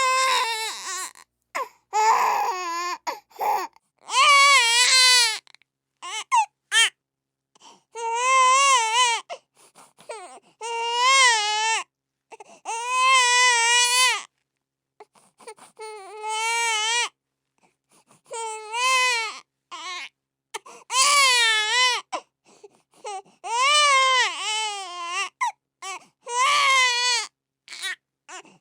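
Infant crying in a steady series of high-pitched wails, each about one to two seconds long with short breaths between them, the pitch wavering within each cry.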